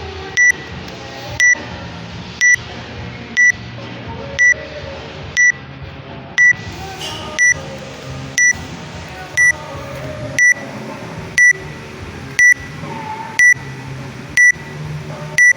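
Short, high electronic beep repeating steadily about once a second, like a workout interval timer counting, over background music.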